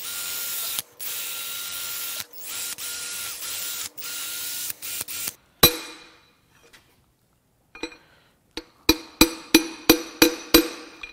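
Cordless drill spinning a wire wheel against the rusted top of a cylinder bore on a seized Chevrolet 454 big-block, run in several bursts with brief stops, to clear the rust holding a stuck piston. About half-way through there is one sharp metallic knock. Near the end comes a quick run of about eight ringing metal taps, roughly three a second, typical of hammer strikes driving the piston.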